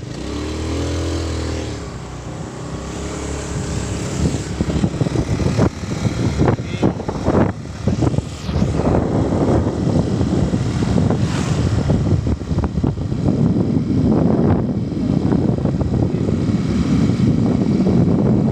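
A motor vehicle running, under a loud, uneven rushing noise.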